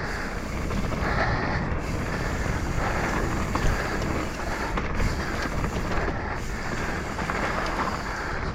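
Mountain bike rolling fast down a dirt singletrack: tyres running over the dirt and wind rushing over the camera microphone in a steady noise, with a few small clicks and rattles from the bike.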